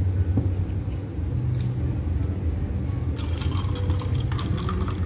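Steady low hum, with light clicks and clinks of cutlery against a plate from about three seconds in.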